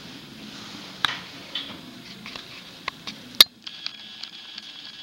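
Scattered light clicks, taps and rustling close to the microphone, with the sharpest click about three and a half seconds in; a faint, thin high tone holds steady after it.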